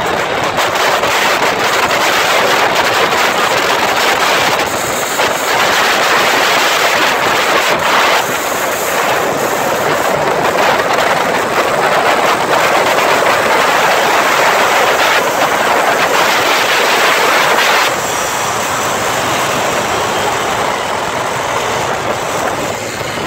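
Loud, steady rushing noise of wind and road from a vehicle travelling at speed, easing a little about eighteen seconds in.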